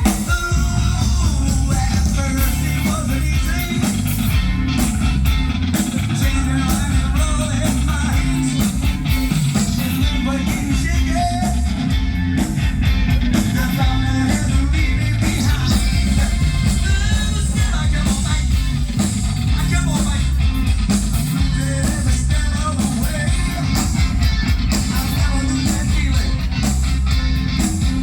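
Live rock band playing loud, with a lead vocal over guitar, a heavy bass line and drums.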